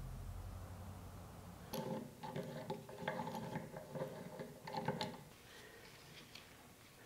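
A small metal C-clamp being handled and fitted onto a cleaver's tang and metal handle bolster: a run of light metallic clicks and clinks for a few seconds, after a low steady hum at the start, then only faint ticks.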